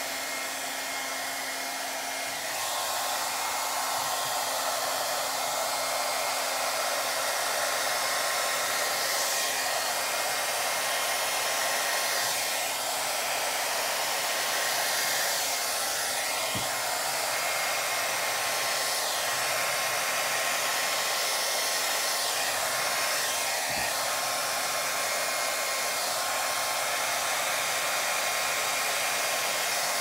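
Handheld hair dryer blowing a steady rush of air, aimed close at wet acrylic paint on a canvas. It gets louder about two and a half seconds in and then holds steady.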